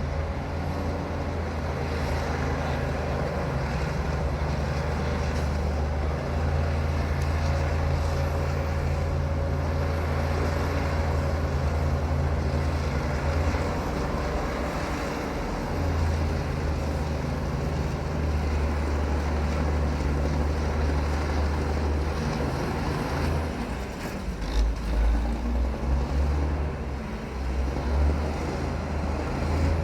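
Bulldozer's diesel engine running steadily, its low drone shifting in pitch a couple of times, with a run of louder uneven low pulses near the end.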